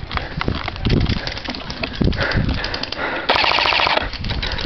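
An airsoft rifle fires a rapid full-auto burst lasting under a second, about three seconds in. Around it come scattered clicks and low thumps from footsteps and gear jostling the camera.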